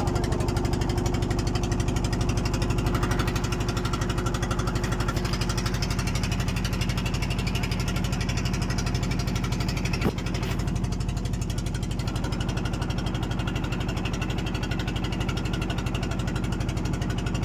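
A boat's engine running steadily as the boat cruises across open water, with a single sharp click about ten seconds in.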